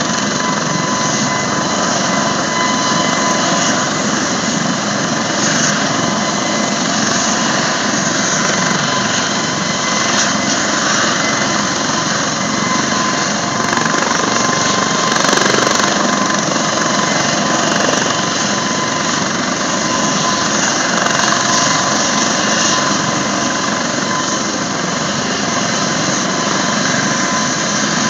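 Eurocopter AS365 Dauphin II helicopter's twin turboshaft engines and rotors running on the ground before takeoff. A loud, steady turbine whine over a dense rush of rotor and exhaust noise.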